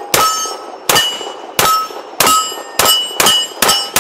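Bul Armory Radical 2011 competition pistol in .40 calibre firing about seven shots, coming faster toward the end, with a short ring after each shot.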